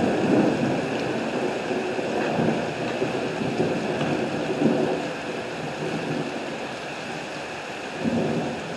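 Heavy rain pouring down in a thunderstorm, with a rumble of thunder that dies away over the first few seconds.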